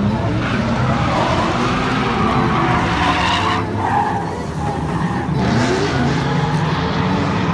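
BMW E46 3 Series coupe drifting: tyres screeching through a long slide over the engine running at high revs. The screech drops away for a couple of seconds past the middle while the engine keeps revving, then returns.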